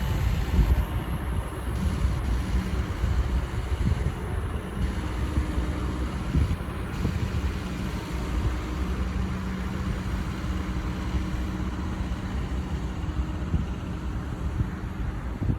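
Komatsu PC170LC-11 hydraulic excavator's diesel engine running steadily, with a low rumble and a faint steady tone over it.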